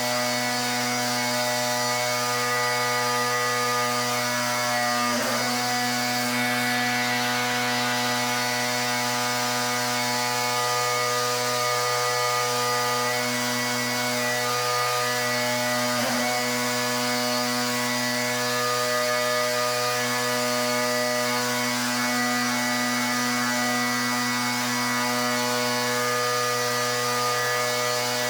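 Pressure washer running steadily: the machine's drone with the hiss of the water jet, with a brief hitch about five seconds in and again about sixteen seconds in.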